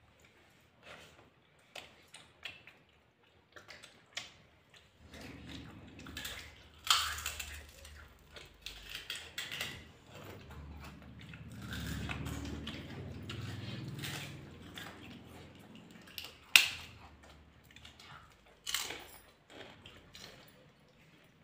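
People chewing and eating fried chicken and paratha by hand, with scattered small clicks from fingers and dishes. Two sharp knocks, about seven and sixteen and a half seconds in, are the loudest sounds, and a low rumble swells through the middle.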